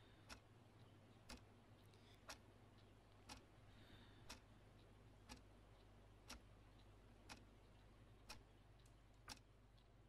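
A clock ticking faintly, one tick a second, over a low steady hum.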